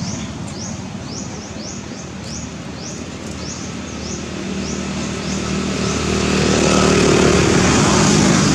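A motor vehicle's engine hums steadily and grows louder over the second half, as if passing close by. In the first few seconds a short rising high chirp repeats about twice a second.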